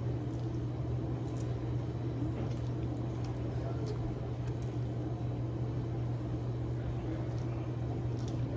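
A steady low hum, with scattered faint short clicks and smacks of eating.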